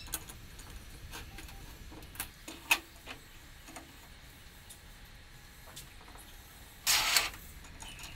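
Scattered metal clicks and knocks as a homemade steel C-clamp is handled and fitted on a steel workbench, two of them sharper a little after two seconds in. About seven seconds in there is a brief louder scrape, fitting a square steel tube being slid into place under the clamp screw.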